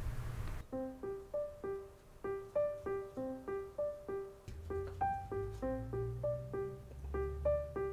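Background music: a light, simple piano tune of evenly spaced notes, about three a second, starting about half a second in.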